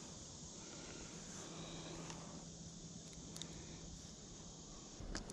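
Faint outdoor ambience: a steady high insect drone, with a couple of small clicks near the end.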